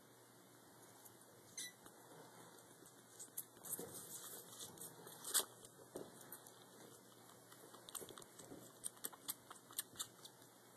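Baby kitten suckling from a feeding bottle: quick wet clicks and smacks in two spells, the loudest about five seconds in.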